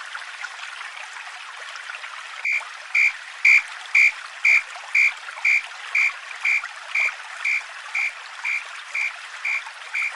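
Railway level-crossing warning bell starting about two and a half seconds in, ringing an even two dings a second, over a steady hiss like running water.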